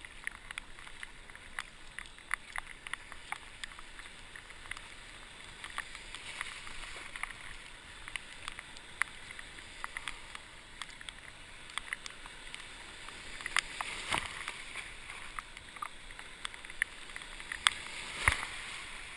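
Sea kayak being paddled, with a steady wash of water and many small drips and splashes from the paddle blades. Near the end there is louder splashing as a breaking wake wave washes over the bow.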